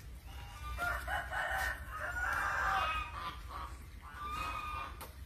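A bird calling: one long call of about two seconds starting about a second in, then a shorter call near the end.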